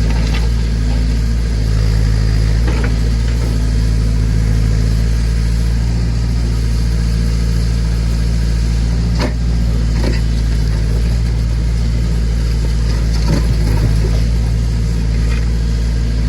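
Massey Ferguson BX 50 backhoe's engine running steadily under load, with a few short knocks and clanks from the digging.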